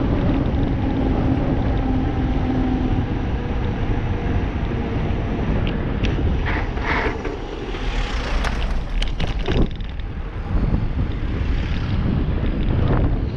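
Wind buffeting the camera microphone and tyres rolling on asphalt while a bike is ridden at speed. A steady low hum runs through the first few seconds, and several short knocks and clicks come in the middle.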